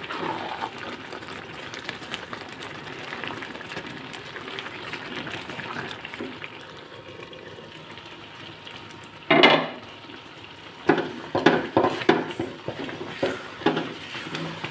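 A pan of grated carrots and rice simmering, bubbling steadily. About nine seconds in comes a loud short scrape, then a run of spoon knocks and scrapes against the pan as the mixture is stirred.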